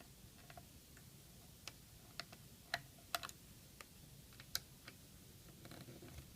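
Faint, irregular light clicks and ticks of a small screwdriver and screws being worked on a laptop's hard-drive bay screws.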